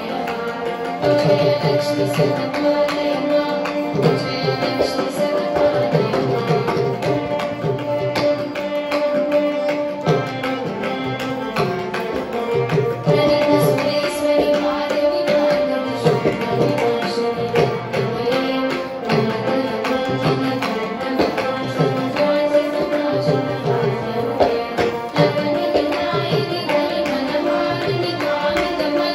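Carnatic music: girls' voices singing a melody together over a mridangam playing a steady stream of rhythmic strokes, with veena accompaniment.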